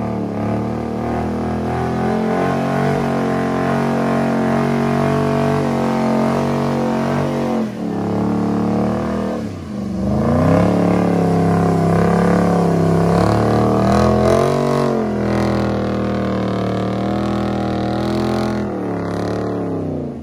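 Dodge Charger's engine held at high revs during a burnout, rear tyres spinning on concrete. The revs drop briefly about halfway through, then climb back and hold.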